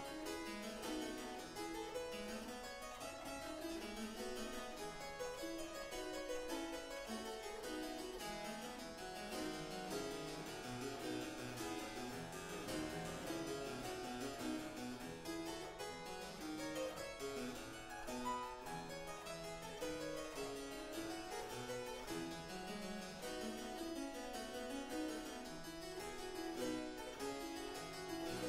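Solo harpsichord playing a 17th-century Italian keyboard piece, a steady stream of short plucked notes in quick succession.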